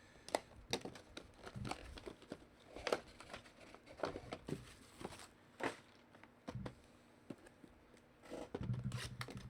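Trading card box packaging being opened by hand: scattered crinkles, tears and light taps of cardboard and plastic wrap.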